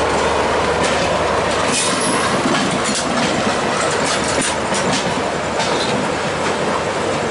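Passenger train running at speed through station trackwork, heard from aboard beside an open window or door: a steady loud rumble and wind noise with irregular clicks of the wheels over rail joints and points.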